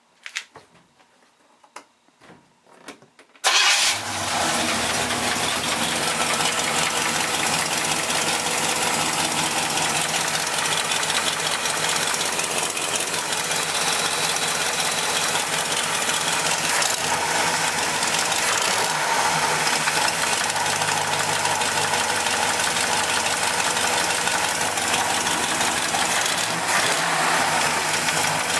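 A Pontiac 326 V8 fires up suddenly about three and a half seconds in, after a few faint clicks, then idles steadily. Through the idle runs a knock that the owner suspects is rod knock, though he had first taken it for ping.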